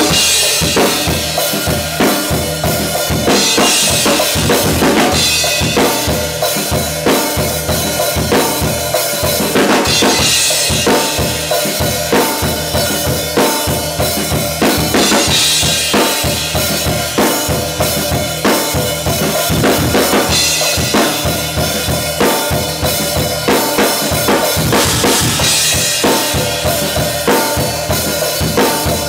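Acoustic drum kit played in a steady groove: snare and hi-hat over bass drum, with a cymbal crash about every five seconds.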